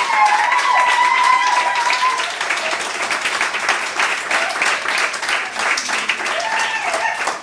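A small room of diners applauding, with dense clapping. A long high held tone runs over the first two seconds and then stops, and a few voices come in near the end.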